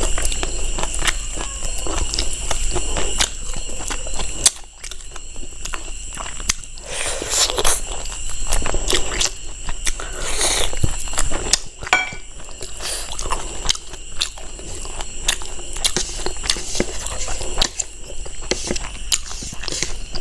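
Close-miked eating of curried pork ribs and rice by hand: chewing and biting meat off the bone, with many small wet mouth clicks. There are two longer slurping or sucking stretches about seven and ten seconds in.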